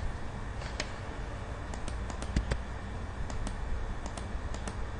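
Irregular light clicks from operating a computer, about a dozen spread unevenly, over a low steady hum.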